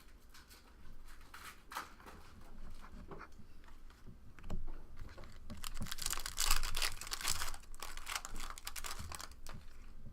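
Trading card packs and cards being handled: papery rustling and clicking as cards are flicked and slid, with a denser, louder stretch of wrapper crinkling about six to nine seconds in.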